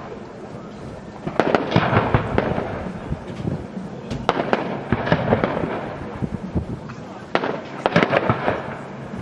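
Fireworks going off in three volleys of sharp bangs and crackling, about a second and a half in, around four seconds in, and around seven and a half seconds in, with quieter crackle between them.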